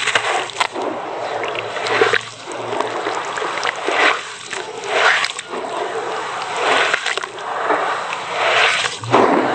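Gloved hands squeezing and stirring crumbly cement-sand mix in a plastic tub of water: wet splashing and sloshing in repeated surges, with small clicks between them as the crumbles break up into a slurry.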